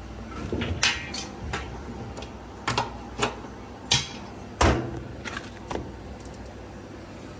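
Hard clattering and knocking as a top-load washer is loaded and handled: a string of sharp clicks and knocks at uneven intervals, the loudest about two-thirds of the way through, over a low steady hum.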